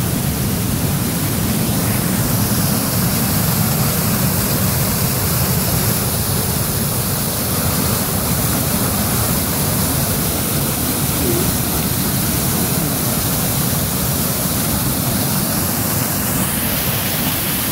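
Rain-swollen waterfall pouring off a rock ledge in a steady, loud rush, heard from close by on the rocks; the flow is heavy after a long spell of hard rain.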